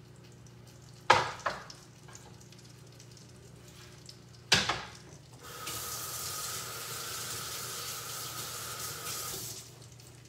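Kitchen sink tap turned on and running for about four seconds for hand washing, starting about halfway through and cut off shortly before the end. Before it, two sharp knocks, the first a little after a second in, the second about four and a half seconds in.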